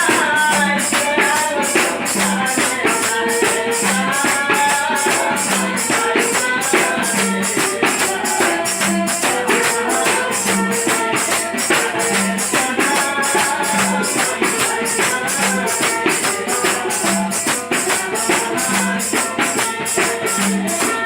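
Bengali Baul folk music: a fast, steady jingling percussion beat of about four strokes a second, a low drum stroke about every second and a half, and a wavering melody above.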